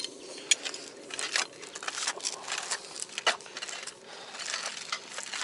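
Safety rope and harness gear being handled: a run of irregular small clicks and taps with rustling in between.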